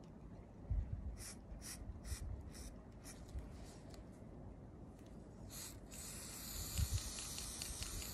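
Aerosol spray paint can in use: a run of short, sharp spurts, about two or three a second, for a couple of seconds, then from about six seconds in a steady spray hiss.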